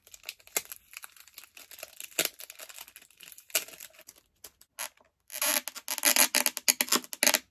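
Clear acrylic standee pieces clicking and rubbing against each other as they are handled, then a dense stretch of hard-plastic scraping about five seconds in as a piece is squeezed into the slot of its acrylic base.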